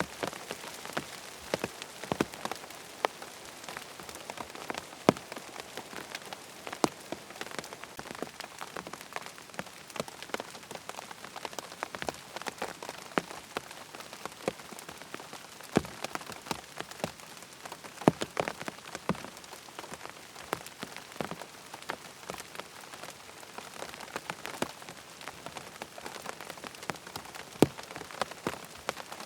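Rain falling on a tent: a steady patter with many irregular, distinct drop taps on the fabric.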